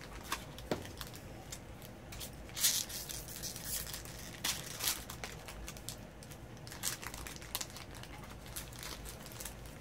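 Foil booster-pack wrapper crinkling and tearing as a trading-card pack is opened, with the cards and the cardboard kit box rustling and clicking. The sounds come in short irregular bursts, and the loudest crinkles fall in the middle.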